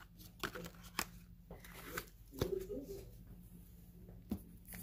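Faint handling noises of trading cards and booster packs: a few light clicks and taps, spread apart, over a low steady hum.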